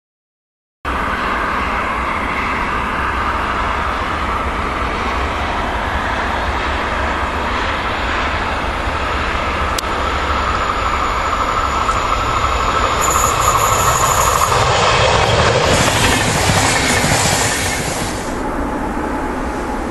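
Regional passenger train running on a curved electrified line: a steady rolling noise of wheels on rail with a whine under it, starting suddenly about a second in and growing louder as the train nears, loudest toward the end. At about 18 s it cuts to a quieter, more distant train noise.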